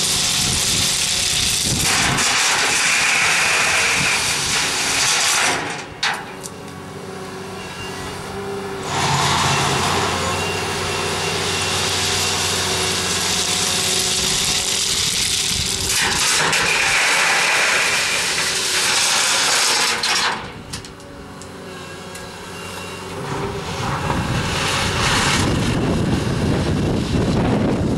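Volvo excavator's diesel engine running while its bucket handles ballast stone and drops it into a steel hopper wagon, in long loud spells of rattling, pouring stone that ease off twice for a few seconds.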